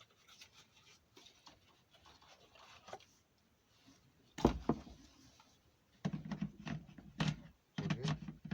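Plastic handling clicks and rustles as an 18 V lithium-ion power-tool battery is fitted to its charger, with one solid knock about four and a half seconds in, then more muffled knocking and handling near the end.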